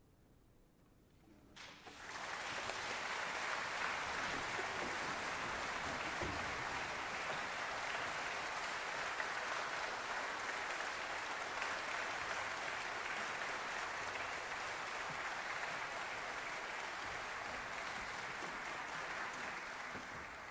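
Quiet at first, then audience applause breaks out suddenly about a second and a half in and continues steadily, easing off at the very end.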